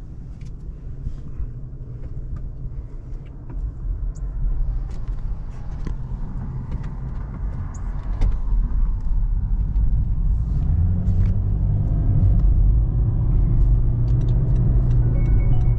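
Road and drivetrain noise inside the cabin of a moving 2017 Toyota Prius, a low rumble that grows steadily louder as the car gathers speed, with a steady low hum joining about two-thirds of the way in.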